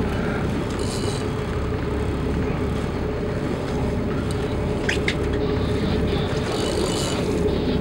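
Boat engine idling: a steady low drone with a constant hum in it, and a few faint ticks over the top.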